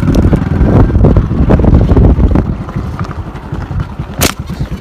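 Loud low rumbling noise of wind buffeting the microphone, easing off somewhat after a couple of seconds, with a single sharp click about four seconds in.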